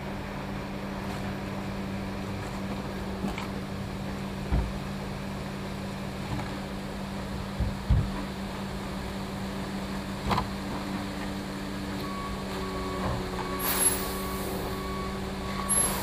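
Cab-mounted diesel of an Oshkosh front-discharge concrete mixer truck (Cat C13) idling steadily, heard from inside the cab, with a few short knocks. A faint, intermittent higher tone joins in near the end.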